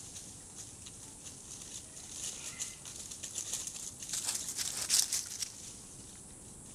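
Dry leaf litter crackling and rustling under Geoffroy's spider monkeys walking over the forest floor. The crackles come as quick irregular strokes, loudest about four to five seconds in, over a steady high hiss.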